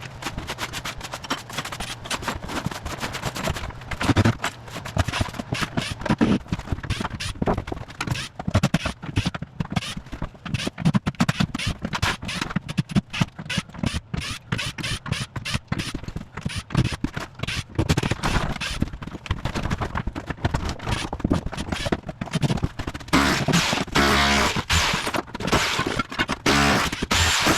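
Bosch Bulldog Max SDS-plus rotary hammer with a tile chisel bit hammering, breaking up floor tile and cement board.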